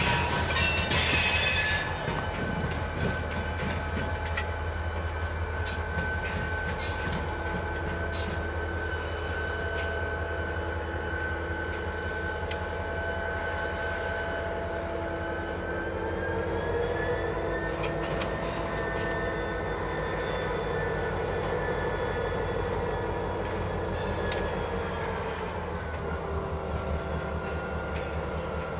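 Diesel freight locomotive shoving a short train of freight cars over a rail diamond crossing: a steady engine rumble with a whine whose pitch rises about halfway through and drops back near the end, and a handful of sharp clanks from wheels crossing the diamond.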